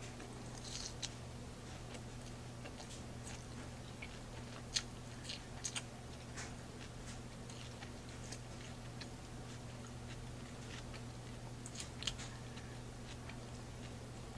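Close-up mouth sounds of a person chewing a mouthful of spinach salad: scattered soft wet clicks and crunches, a few sharper ones, over a steady low hum.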